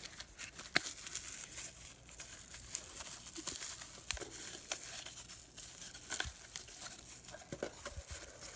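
Rustling and crinkling of product packaging as items in a cardboard box are handled, with scattered light clicks and taps.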